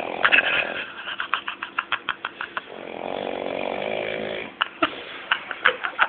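A man snoring in his sleep: one long snore ending just after the start and another from about three to four and a half seconds in, with irregular short clicks between them.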